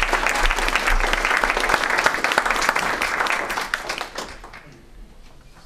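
Audience applauding at the end of a talk, the clapping dying away about four to five seconds in.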